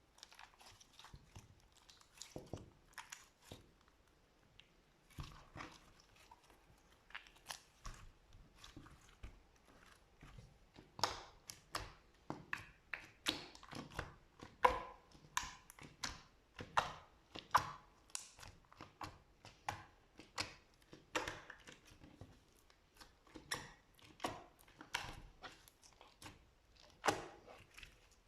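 Slime being squeezed and poked by hand, making irregular sticky clicks, crackles and small pops that come thicker and louder partway through.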